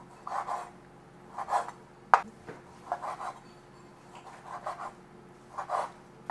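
Chef's knife sawing through seared beef steak on a wooden cutting board: about five short rasping slicing strokes at an even pace, with one sharp click about two seconds in.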